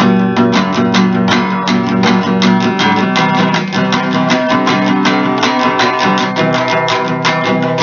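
Acoustic guitar strummed in a fast, even rhythm: an instrumental passage between sung lines of a song.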